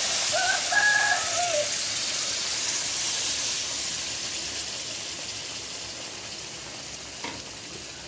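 Tamarind water sizzling as it hits the hot masala in a metal kadai, the hiss dying steadily away as the liquid settles. A rooster crows once in the background about half a second in, the loudest sound here.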